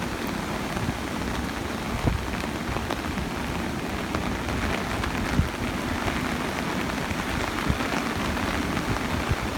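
Heavy typhoon rain falling steadily, with small drop ticks and gusts of wind rumbling on the microphone.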